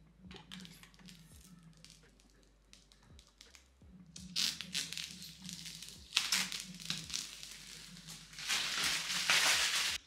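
Thin protective plastic film being peeled off a PC case's tempered-glass side panel, crinkling and tearing. It is faint at first and grows much louder from about halfway through.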